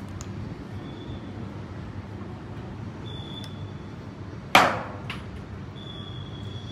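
A rock tossed off a high roof hits the ground far below about four and a half seconds in: one sharp crack with a short ringing tail. Steady wind noise runs underneath.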